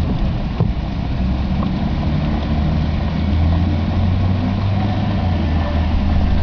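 Steady low rumble with an even hiss over it: gusting storm wind buffeting the microphone in heavy rain.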